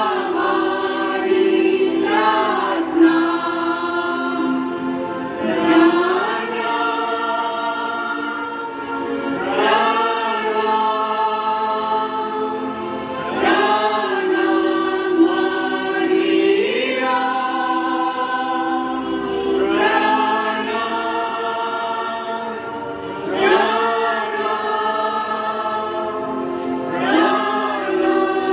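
A group of voices singing a Christian devotional hymn together, holding long notes. A new phrase starts on a rising glide every three to four seconds.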